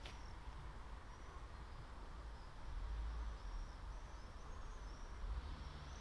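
Wind buffeting the microphone as a low rumble that swells in gusts about halfway through and again near the end. Faint, high bird chirps repeat throughout.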